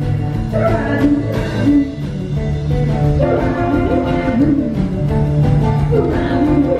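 Live rockabilly band playing: a female lead vocal over acoustic and electric guitars, upright bass and drums, with a steady cymbal beat.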